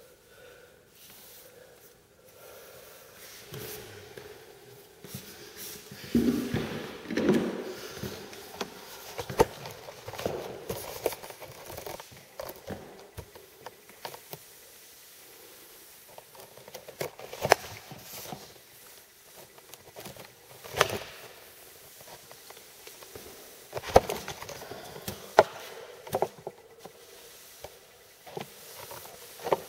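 T-bar applicator pad sliding and swishing through wet floor finish on a hardwood floor, with scattered sharp clicks and knocks from handling the pole.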